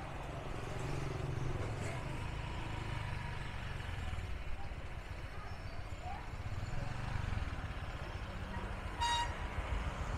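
Street traffic heard while riding along a city road: a steady low rumble, with one short high beep about nine seconds in.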